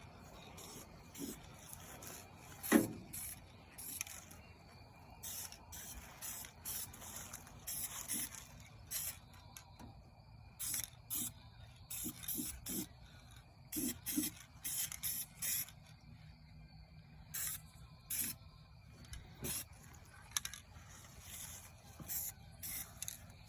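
Aerosol spray-paint can hissing in many short bursts as the brake drums get a coat of paint.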